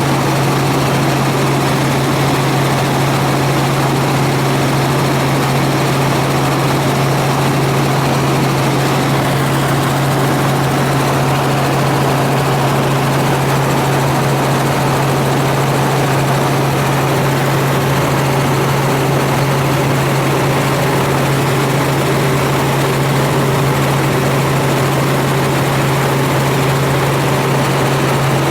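Helicopter cabin noise in flight: the rotor and turbine give a steady, loud drone with a strong low hum and a constant rush across all pitches.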